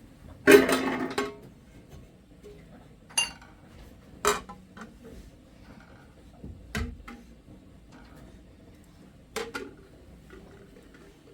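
Kitchen dishes and utensils clattering and clinking: a loud clatter lasting under a second near the start, then a few separate sharp knocks spread out over the following seconds.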